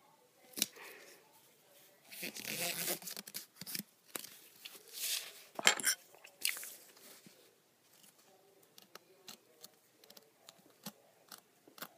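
Strips of sticky tape being peeled apart and handled, giving several ripping, crackling tears, followed near the end by a run of light clicks and taps.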